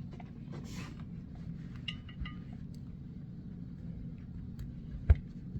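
Small clinks and one sharp knock of tools and parts being handled on a workbench, over a steady low hum.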